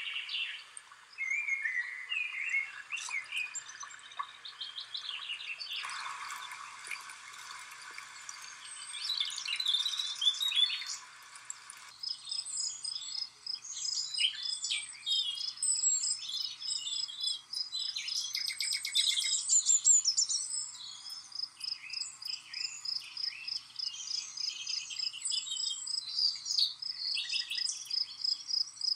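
Several songbirds chirping and singing in short, overlapping phrases. About twelve seconds in, a steady, fast-pulsing high trill starts and runs on beneath the calls.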